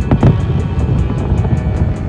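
Background music with a steady fast beat, with a few deep thumps near the start.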